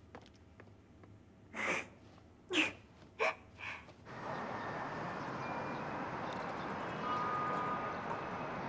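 Four short breathy huffs from a woman, like little scoffing laughs through the nose. About four seconds in, a steady outdoor background hiss takes over.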